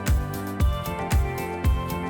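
Background music with a steady beat of about two kicks a second over held notes.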